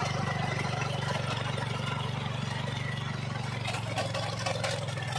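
Walk-behind hand tractor's engine running steadily under load, with fine regular pulsing, as its rotary bed-former tills and throws soil. About four seconds in, a brief patch of scraping and rattling rises over the engine.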